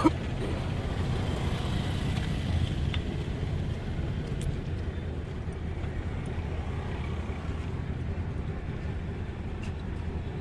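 Steady low rumble of outdoor background noise, with a few faint light clicks.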